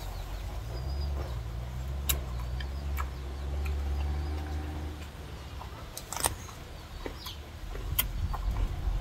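A motor vehicle's engine rumbling past, strongest in the first half, with short bird calls and a few sharp clicks.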